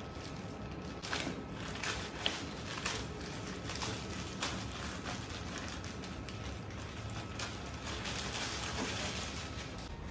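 Plastic courier mailer bag crinkling and rustling as it is handled and opened, in irregular crackles.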